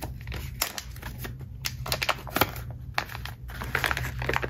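Thin paper wrapper crinkling and rustling as hands unfold it from a stack of paper stamp blanks, a run of irregular sharp crackles.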